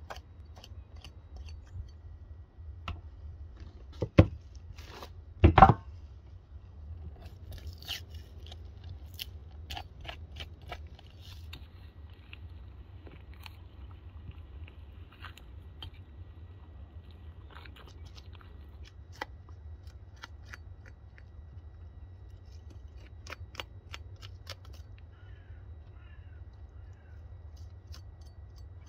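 Butcher's knife cutting through a lamb carcass: meat and sinew slicing, with scattered small clicks and crackles. Two sharp knocks about four and five and a half seconds in.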